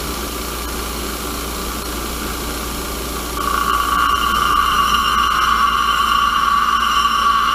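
Warrior bench grinder running steadily. About three seconds in, a small steel piece held by hand is pressed to the wheel, and a louder, steady grinding hiss with a high ring begins and continues.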